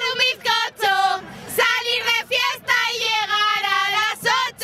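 Women's high voices singing a fiesta chant loudly close to the microphone, in short sung phrases with one long held note about three seconds in.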